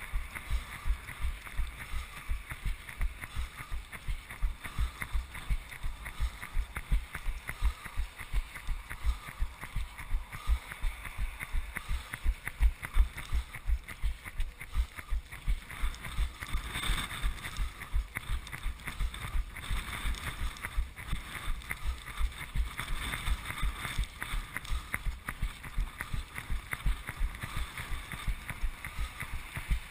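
A runner's footfalls on wet asphalt, a steady low thud about three times a second as the body-mounted camera jolts with each stride.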